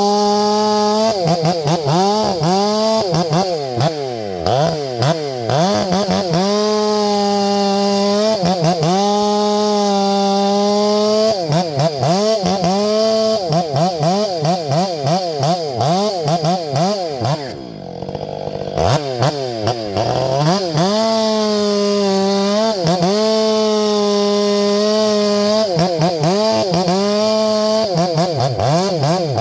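Ported Stihl MS500i fuel-injected two-stroke chainsaw at full throttle making a series of cuts: the revs hold high and steady between cuts, then waver and dip as the chain bites into the wood and wind straight back up. A little past halfway the engine drops off briefly before revving up again.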